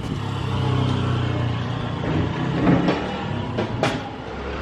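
Road vehicle engine running close by: a steady low hum over street traffic noise, with a brief click near the end.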